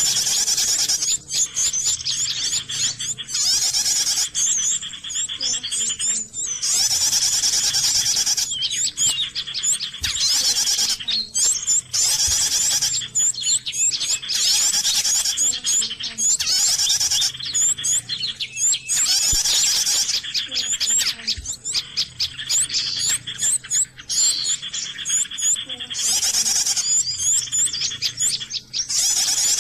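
Bird calls played from an MP3 lure recording through a speaker to draw birds in for trapping: dense, high chirping in repeated phrases of about a second, with brief gaps between them.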